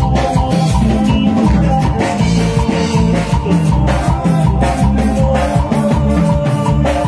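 Live band music with a steady Latin dance beat, keyboard and guitars, played loud over a sound system.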